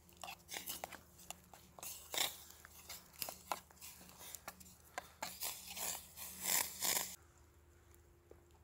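A spoon stirring soup in a soot-blackened metal camp pot, with irregular scrapes and clinks against the pot's sides. The sounds stop suddenly about seven seconds in.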